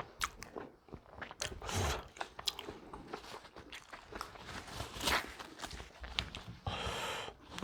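Close-miked eating sounds: a person biting and chewing food, with irregular crunches and wet mouth clicks. A short rushing noise comes near the end.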